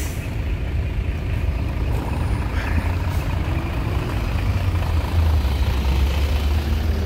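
Low, steady rumble of a truck's diesel engine, growing louder about five seconds in.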